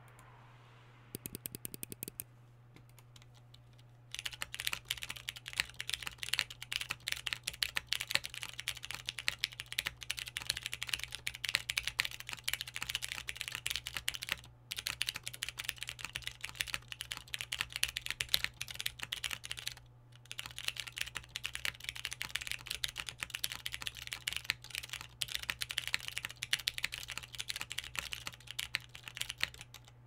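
Typing on a Geonworks Frog TKL mechanical keyboard with broken-in Cherry MX Brown tactile switches on a polycarbonate plate and CRP R4 keycaps: a dense, scratchy clatter of keystrokes. A short run of rapid clicks comes about a second in, steady fast typing starts about four seconds in, with two brief breaks, over a faint low hum.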